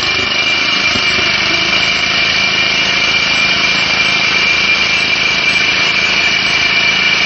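Core drilling machine running with its core barrel cutting into a concrete block: a steady, loud machine noise with a high whine.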